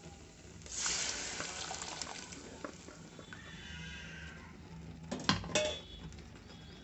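Cooked mango dal poured into hot tempering oil in a pressure cooker, hissing sharply as it hits the oil about a second in and then fading to a low sizzle. About five seconds in, two sharp metal knocks, pot against the cooker.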